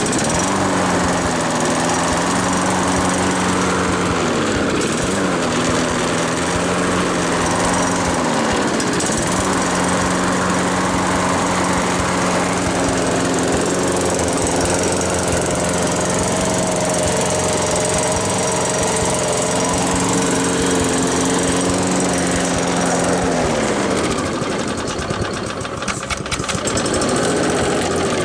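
Toro walk-behind lawn mower engine running at a steady speed, with two brief dips in speed in the first ten seconds. Near the end it slows for a few seconds, then picks up again.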